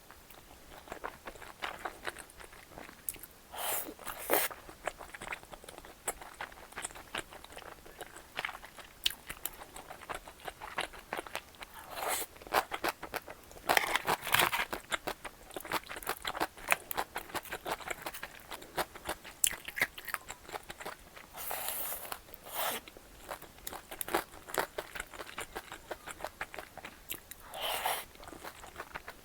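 Close-miked mouth sounds of someone eating tteokbokki: steady chewing with many small wet clicks, broken every several seconds by a louder bite lasting about a second.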